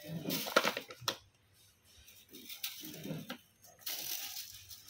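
Kittens scuffling and play-fighting among a stick broom's stiff bristles: irregular bursts of rustling and scratching with sharp clicks, in three flurries with short pauses between.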